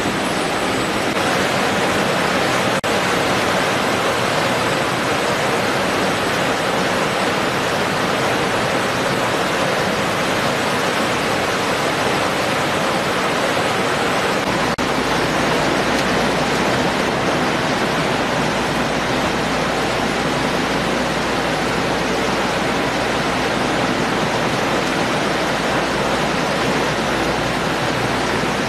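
Steady rushing noise of running water and machinery on a fish-processing line, with no distinct events; a deeper steady hum comes in about halfway through.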